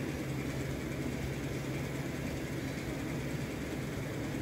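A steady low machine hum with an even hiss, unchanging throughout.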